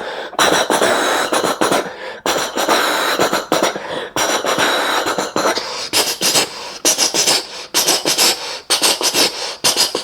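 Beatboxed imitation of a train: a continuous hissing chug cut by sharp mouth clicks, settling into a regular pulse of about two to three strokes a second in the second half.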